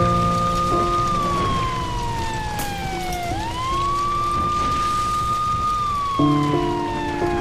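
A siren wailing in a slow cycle: a quick rise to a held high note, then a long slide down, repeating about every four and a half seconds. Under it runs music with sustained low chords that change every second or so.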